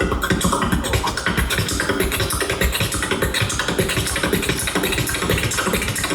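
Beatboxing: a fast, dense beat of mouth-made kick and snare sounds.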